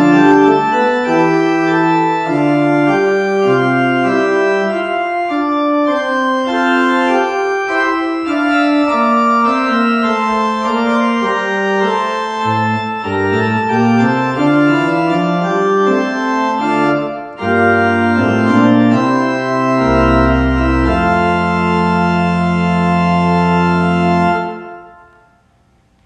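Church organ playing the closing bars of a piece: sustained moving chords, a short break about seventeen seconds in, then a final chord over a deep pedal note held for several seconds and released near the end, fading away.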